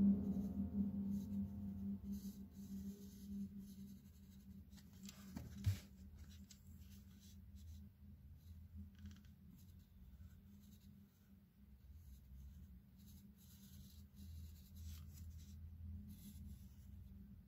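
A pen scratching on ruled paper in slow cursive strokes, faint and irregular. The tail of piano music fades out over the first few seconds, and a single sharp click comes about six seconds in.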